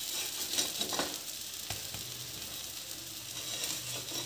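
Butter sizzling steadily in a hot frying pan under slices of garlic bread, with a few light taps of a wooden spatula against the pan in the first couple of seconds.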